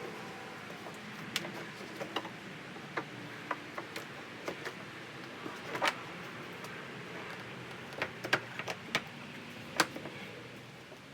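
Irregular sharp plastic clicks and knocks as a Jeep Wrangler JK's plastic inner fender liner pieces are handled and fitted together with push tabs.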